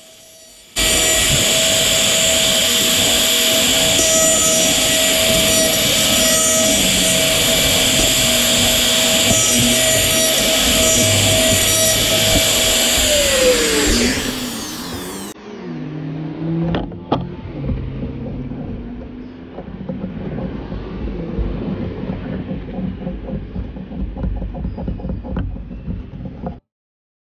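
Bosch plunge router with a bearing-guided template bit running at full speed and cutting a round recess in maple, then switched off and spinning down with a falling whine about 14 seconds in. Quieter handling noises and a few clicks follow.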